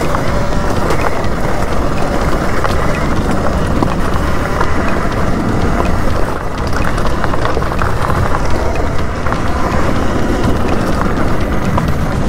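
Electric dirt bike ridden over a loose gravel trail: wind rushing over the microphone, with tyres crunching on stones and the bike rattling in many small clicks and knocks.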